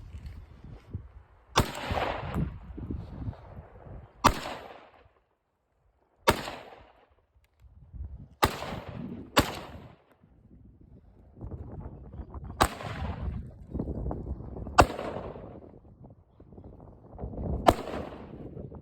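Colt AR-15 rifle firing .223 rounds: eight single shots at uneven intervals of one to three seconds, each followed by a short echo.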